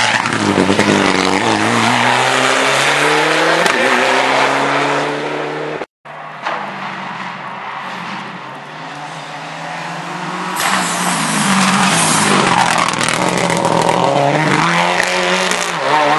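Rally car engines at full throttle: one car accelerating away, its engine rising in pitch through the gears, cut off suddenly about six seconds in. Then a second rally car is heard approaching, its engine growing loud from about ten seconds in.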